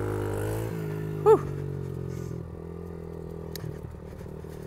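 Suzuki DR-Z70 pit bike's small 67 cc single-cylinder four-stroke engine running at low speed under a rider, then easing off and dropping in pitch about two and a half seconds in. About a second in, one short, loud sound falls in pitch.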